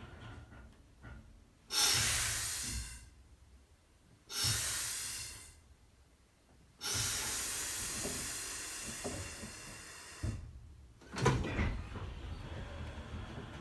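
Third Avenue Railways 629 streetcar's self-lapping air brake valve hissing in sudden bursts as the foot brake pedal is moved, air rushing through the brake valve to change brake-cylinder pressure. Three hisses start abruptly and fade, the third lasting over three seconds, followed about eleven seconds in by a sharper, louder burst with a low knock and more hiss.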